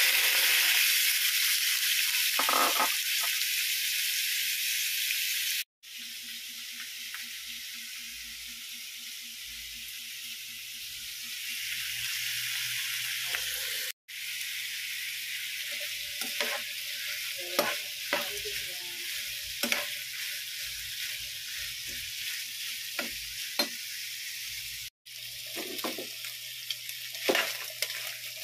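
Diced pork belly sizzling as it fries in a nonstick pan, loudest at first just after the raw pork goes in. A spatula scrapes and knocks against the pan as the pieces are stirred, more often in the second half. The sound breaks off briefly three times.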